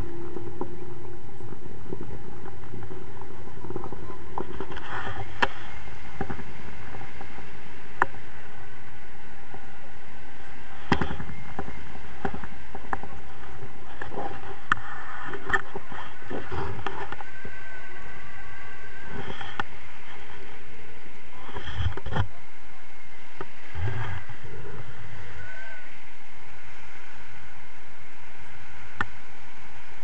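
Wind rushing over a handheld action camera's microphone in flight on a tandem paraglider, a steady, loud buffeting noise. Brief higher sounds poke through it now and then.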